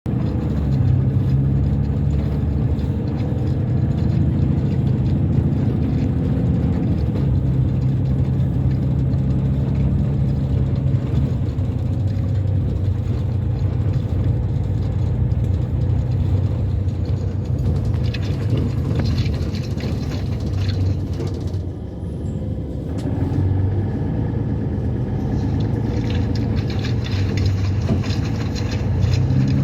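Beko Ironfast washing machine running with a steady low hum, a higher hiss coming and going in the second half.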